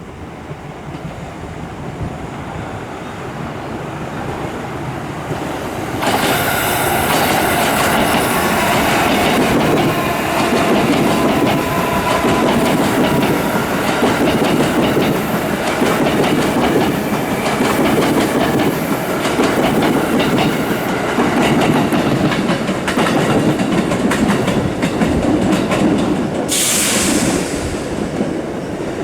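A train approaching, growing louder over several seconds, then passing close by for about twenty seconds: wheels clattering over the rail joints with a clickety-clack and a faint squeal. A brief hiss comes near the end.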